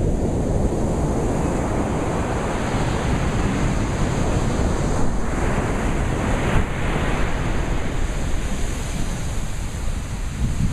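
Sea surf washing onto a beach: a steady rush of waves, swelling louder for a couple of seconds about halfway through.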